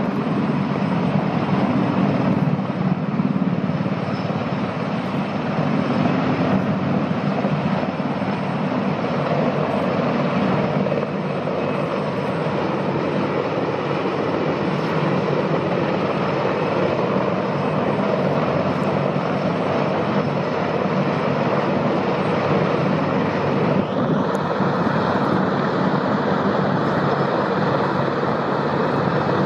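Mi-26 heavy-lift helicopter hovering, its rotor and twin turboshaft engines making a loud, steady, dense rumble. A higher whine joins near the end.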